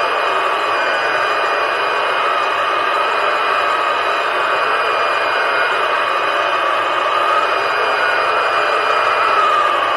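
Battery-powered underwater scooter running beneath the surface: a steady rushing hiss of motor and propeller with a whine that slowly wavers in pitch.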